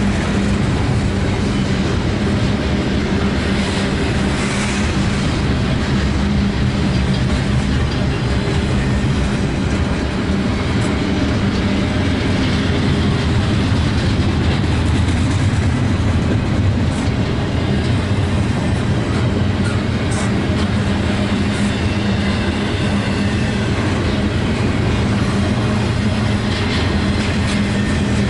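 A train passing close by: steady loud running noise of wheels on rail, with clickety-clack over the rail joints.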